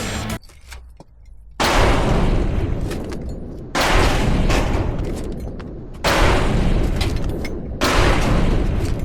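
Strong wind gusts buffeting the microphone: four loud surges, each starting suddenly and dying away over about two seconds, heavy in the low end.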